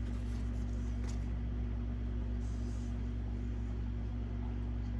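Steady low hum, with a faint click about a second in and a brief soft rustle about halfway.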